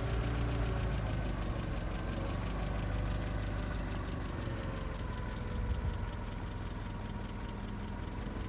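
Engine of a telescoping-boom machine running steadily while the boom extends, with slight rises and falls in pitch.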